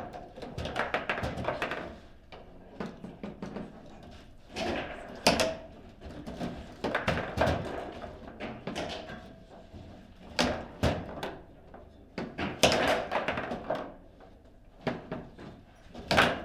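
Table football in play: the ball being struck by the plastic player figures and the rods clacking and knocking against the table, in irregular sharp knocks, several of them loud.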